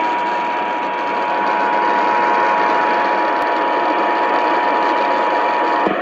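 Emergency Alert System attention signal, the steady two-tone alert of a Required Monthly Test, heard through heavy AM radio static from a Sangean alert radio's speaker.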